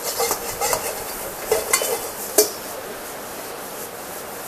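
Spatula scraping and stirring fried rice in a non-stick wok: about six quick scrapes in the first couple of seconds, then a softer steady rustle.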